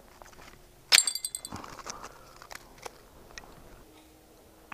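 A sharp clink with a short ringing about a second in, then scattered lighter clicks and crunches: ice and fishing gear being handled at the ice hole.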